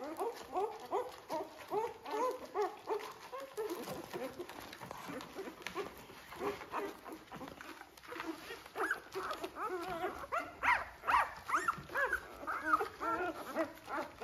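Four-day-old Labrador retriever puppies squeaking and whimpering in a constant stream of short rising-and-falling cries as they crawl to their mother to nurse. The cries grow busier and higher-pitched from about nine seconds in.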